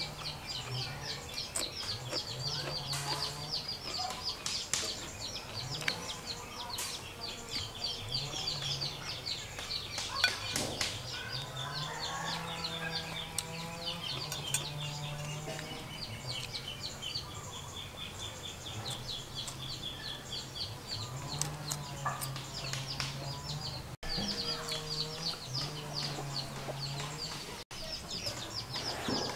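Chickens clucking in a farmyard over a fast, continuous high-pitched chirping.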